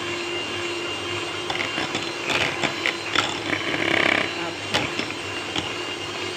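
Electric hand mixer running steadily with its twin beaters in whipped cream, beating it until soft peaks form. Scattered clicks and rattles come between about two and five seconds in.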